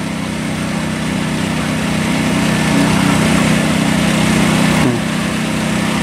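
Small engine of a mini rice harvester running steadily, with a brief drop in pitch about five seconds in.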